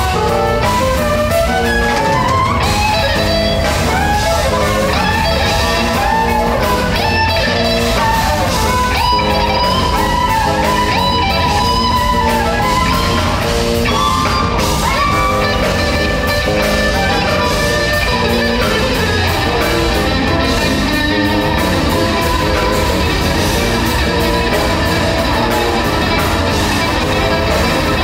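Live jazz-rock fusion band: electric guitars over drum kit and bass, heard from the audience. A lead line climbs in a fast rising run in the first couple of seconds, then holds long sustained notes in the middle.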